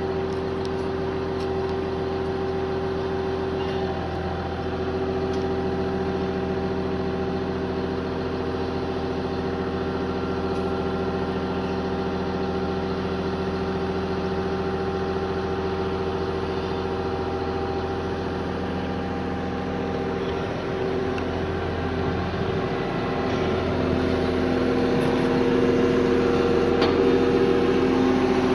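Sennebogen 825 M wheeled material handler's engine idling with a steady, even hum, growing a little louder near the end.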